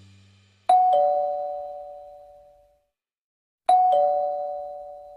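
Two-tone 'ding-dong' doorbell chime, a higher note then a lower one, sounding twice about three seconds apart, each ringing out and fading away.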